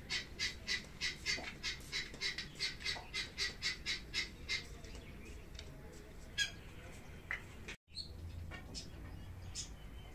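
A bird calling over and over in quick, evenly spaced high calls, about three or four a second, for the first four to five seconds, then only scattered single chirps.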